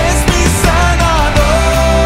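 Spanish-language Christian worship song playing with a full band and a steady beat. The lead melody slides about, then settles on one long held note about one and a half seconds in.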